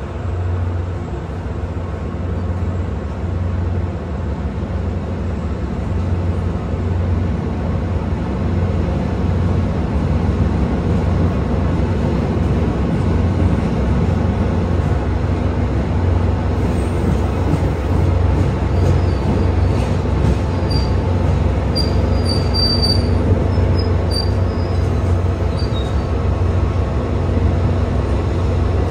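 MBTA commuter rail coaches rolling slowly past on jointed track, with a steady low diesel drone and loudness building gradually. A few faint, brief wheel squeals come in about two-thirds of the way through.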